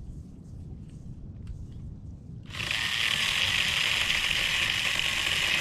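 Stihl GTA26 battery-powered mini chainsaw starting up about halfway through and running steadily, cutting a small branch, after a few faint clicks of handling.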